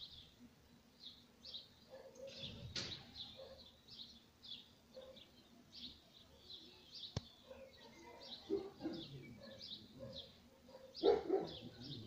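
Small garden birds chirping, short high notes repeating a few times a second. A sharp click comes about seven seconds in, and a louder, lower call near the end is the loudest sound.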